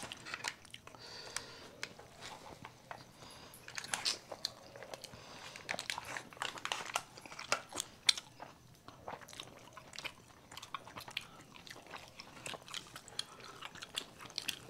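Two people chewing and biting pan-fried momos close to the microphone: many short mouth clicks and smacks with no speech.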